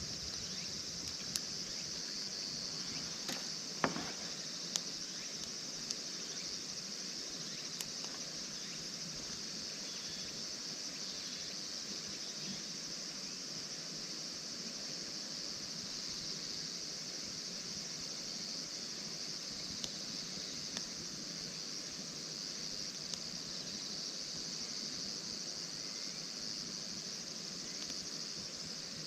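Steady high chirring of insects, with a few scattered sharp clicks, most of them in the first few seconds.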